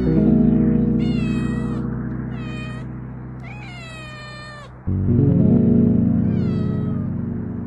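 A white cat meowing four times, each meow falling in pitch at the end, the third the longest. Underneath, background music with sustained low chords that slowly fade, a new chord coming in about five seconds in.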